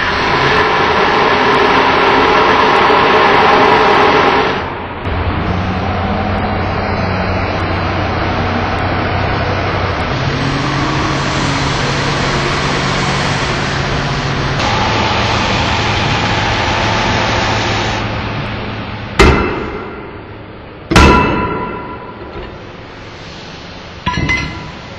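A knife blade grinding against a spinning grinding wheel, then the steady hum of grinding machinery running. Near the end come two loud hammer blows on metal that ring out, and a lighter strike just before the end.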